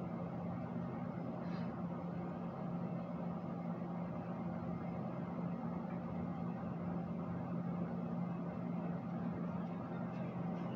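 A steady low hum with a constant noise underneath, unchanging throughout.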